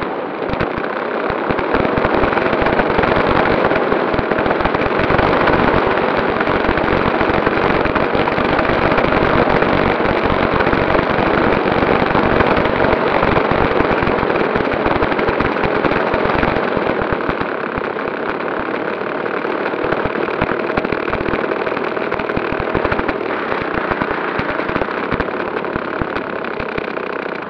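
Engine of a Top Flite P-51 Mustang RC model plane, heard close up from on board, running at low throttle as the model taxis on grass. A rapid, crackly buzz that picks up a little about two seconds in.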